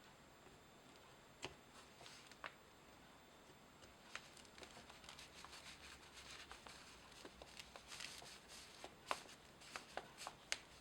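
Near silence with faint, scattered clicks and ticks of small parts being handled and fitted by hand. The clicks come more often in the second half.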